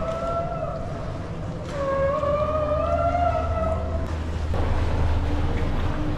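Boat engine running steadily with a low hum. A wavering high tone is laid over it twice: briefly at the start, then for about two seconds from about two seconds in.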